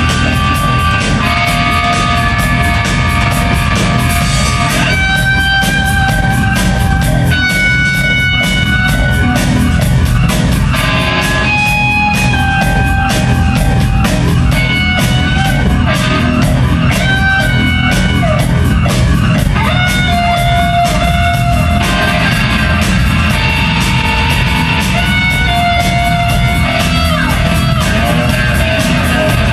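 Live electric guitar, electric bass and drum kit playing together: the guitar holds long sustained notes that change every second or two, over a heavy bass line and busy, fast drumming.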